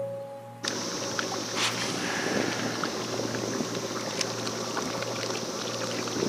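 A held music note cuts off less than a second in. A jet ski's engine and water noise follow, heard on board as a steady hiss with a high whine and small scattered clicks.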